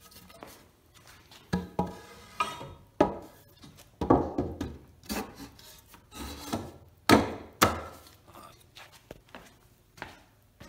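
2x4 lumber boards being handled and laid across a wooden frame: a string of irregular wooden knocks and clunks with scraping as the boards are slid into place. The knocks are loudest in the middle.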